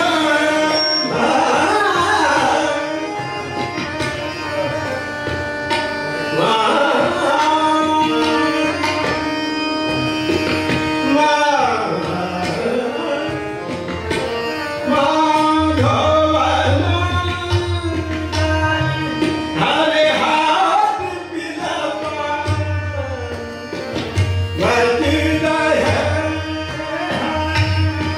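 Hindustani classical vocal performance: a male singer sings long, gliding melodic phrases over a steady tanpura and harmonium drone, with tabla accompaniment. The deep bass strokes of the tabla grow stronger from about halfway through.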